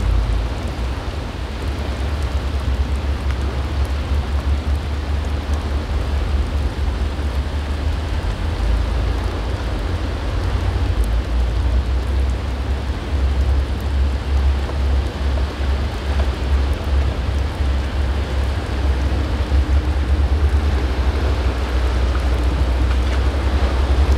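Strong wind buffeting the microphone with a heavy, uneven low rumble over the hiss and wash of breaking surf. In the last few seconds a faint steady hum joins in as the sportfishing boat's engines draw close.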